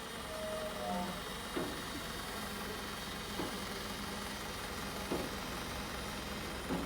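An engine running steadily, with a short knock about every second and a half to two seconds.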